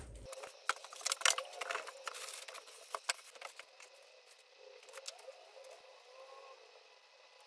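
Unpacking noises: a quick run of sharp clicks and plastic rustles as a new electric scooter is handled out of its packaging, thinning to faint scattered rustles after about three and a half seconds.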